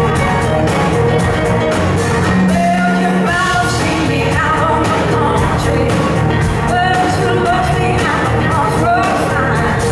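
Live blues-rock band playing: two electric guitars over drums and bass, with a woman's lead vocal coming in a few seconds in.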